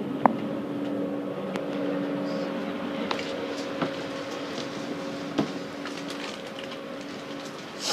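Steady hum inside a V set double-deck intercity railcar, with a few short steady tones in it, and scattered sharp clicks and knocks as someone walks through the carriage.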